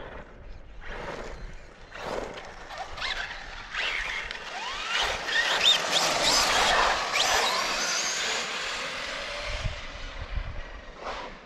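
Brushless RC cars, an Arrma Talion and a Traxxas Slash 4x4, driving fast on asphalt: electric motors whining and tyres squealing and hissing. The sound builds to its loudest in the middle, with gliding whines rising and falling, then fades as the cars move off.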